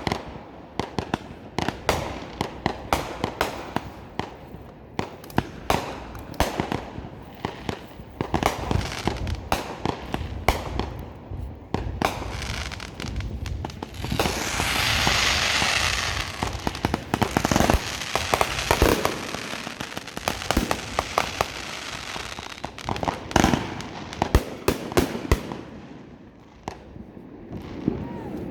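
Fireworks going off in rapid succession: many sharp bangs and pops, with a few seconds of dense hissing crackle about halfway through.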